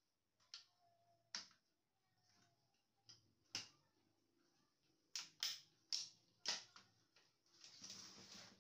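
Scattered light clicks and knocks of laser-printer parts being handled, about eight in all and bunched together past the middle, followed by a brief scraping rustle near the end.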